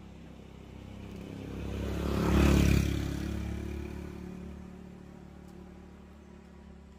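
A motor vehicle passing along the road with its engine running, growing louder to a peak about two and a half seconds in and then slowly fading away.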